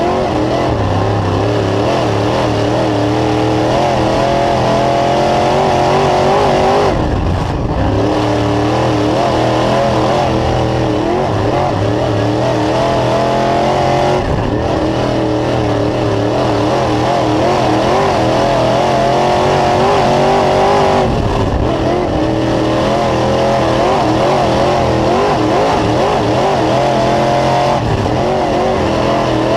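Dirt late model race car's 602 crate V8 running hard at speed, heard from inside the car. The engine note rises and falls continuously and drops off briefly three times, about every seven seconds.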